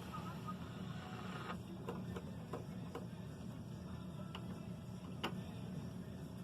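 Small screwdriver working the screws out of a laptop's plastic bottom cover: scattered light clicks and ticks over a steady low hum.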